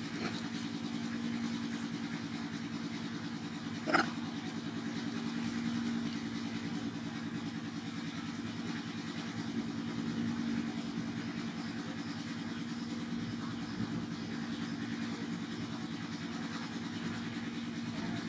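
A motor engine idling steadily, a low even hum with a fine regular pulse. A single short sharp sound about four seconds in.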